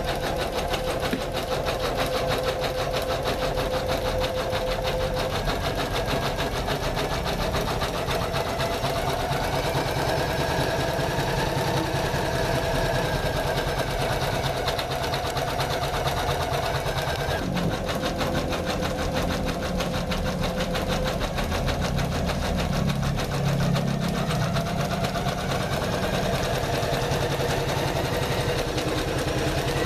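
Janome MC500E computerized embroidery machine stitching steadily at a fast, even rate.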